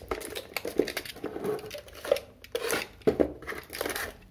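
Plastic toy packaging crinkling and crackling in irregular rustles and clicks as the figures are handled and worked free of their wire ties.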